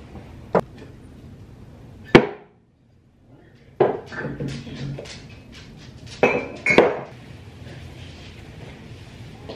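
Kitchen clatter of dishes, utensils and cabinet being handled: scattered knocks and clinks, the loudest a sharp knock about two seconds in, then a run of clatter and two pitched clinks close together near the end.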